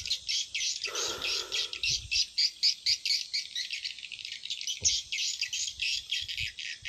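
Small birds chirping rapidly and continuously in a dense, high-pitched chorus. A short, lower-pitched noise comes in about a second in.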